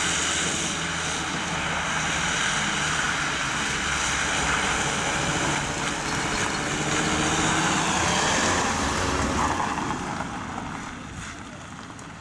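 Vehicles driving past at low speed: a first-generation Fiat Panda 4x4, then a Volkswagen Transporter ambulance, engines running steadily with tyre noise on wet gravel and mud. The sound fades from about ten seconds in as they pull away.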